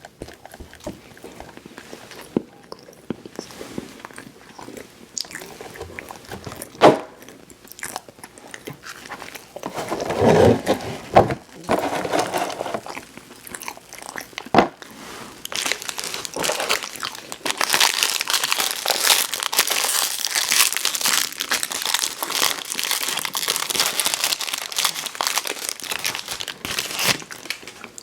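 Close-miked eating sounds: scattered mouth clicks and single bites at first, then from about halfway a long stretch of dense crinkling and crunching.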